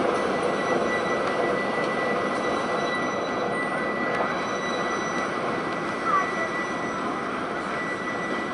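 Diesel switcher locomotive's engine running steadily as it rolls slowly along the track, a dense drone with a thin steady whine over it, gradually getting quieter.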